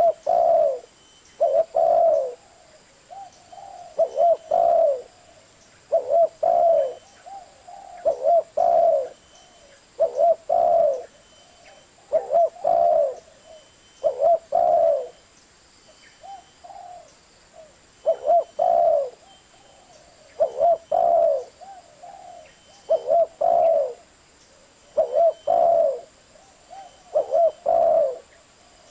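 A bird cooing over and over: low, slightly falling notes in groups of two or three, repeating about every two seconds.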